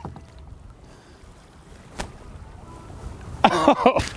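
Wind on the microphone and water around a kayak, with a steady low rumble, one sharp click about two seconds in, and a short exclamation from a man's voice near the end.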